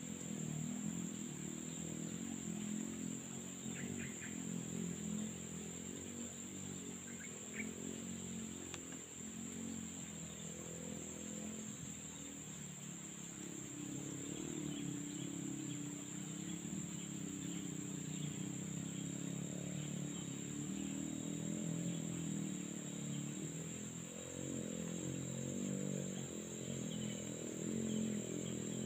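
Steady high-pitched drone of insects, with an uneven lower sound underneath.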